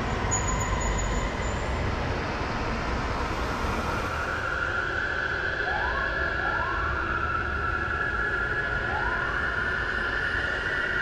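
Steady outdoor rumble with a distant siren: a high held tone sets in about four seconds in, with a few short rising whoops.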